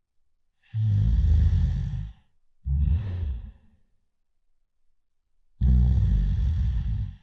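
A person snoring loudly in a slow rhythm: a long, rattling snore, a shorter breath, then another long rattling snore after a pause of about two seconds.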